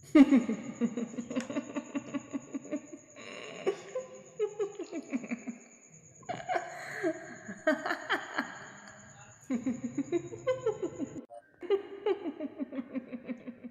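A voice laughing in five long bouts of rapid, pulsing laughs, each falling in pitch, with short breaks between them.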